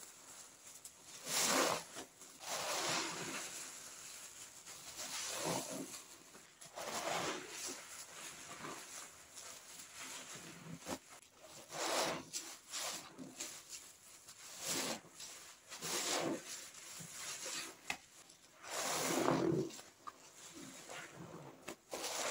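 Wet, sudsy squishing and rubbing from toilet-cleaner foam being worked, coming in irregular bursts every second or two.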